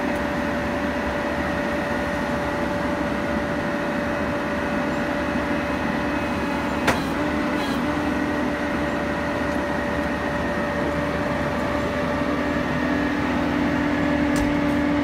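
Roll-off truck's diesel engine idling with the PTO still engaged, a steady whine over the engine. A single sharp knock about seven seconds in.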